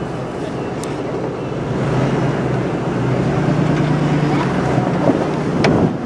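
Pickup truck driving slowly on a snowy, rutted logging road: a steady low engine hum with tyre and road noise, growing a little louder about two seconds in. One short click near the end.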